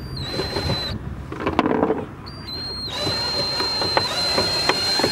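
Handheld power drill backing out a tail-light mounting screw: a steady high-pitched motor whine in two runs, about a second at the start, then again from about two seconds in to the end, with a few handling clicks in the gap.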